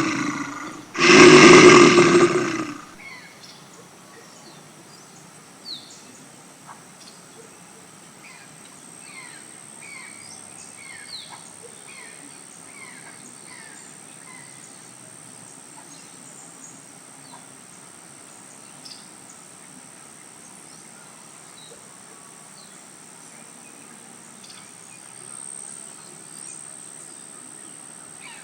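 A large animal's deep roar lasting about a second and a half, starting about a second in, followed by scattered short bird chirps over a steady high hum.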